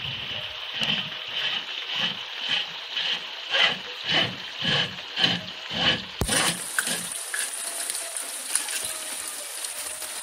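Plastic cap of a rainwater filter being twisted back on by hand: a run of rhythmic scraping strokes, about two a second, ending in a sharp knock about six seconds in as it seats.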